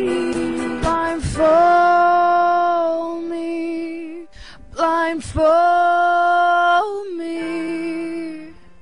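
A woman's singing voice holding long sustained notes, with little else beneath it. Two loud held notes are followed by a softer final note that fades out near the end.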